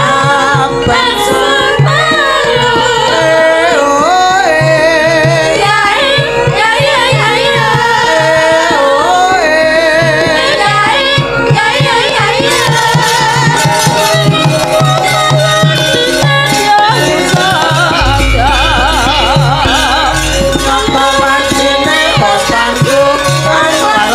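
Javanese sindens, several women, singing together with wavering, ornamented voices over gamelan accompaniment with hand drumming. A deep low tone comes in about three-quarters of the way through.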